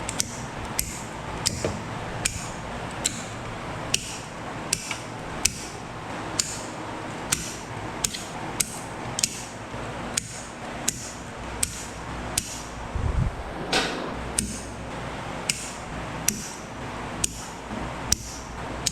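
Wire cutters snipping through wires one after another, a sharp snip about every two-thirds of a second, with a heavier clunk about two-thirds of the way through.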